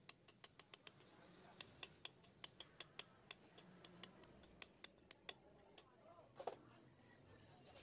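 Faint, irregular light clicks and taps of metal tools and small engine parts being handled during motorcycle engine assembly, roughly three a second, with a slightly louder knock about six and a half seconds in.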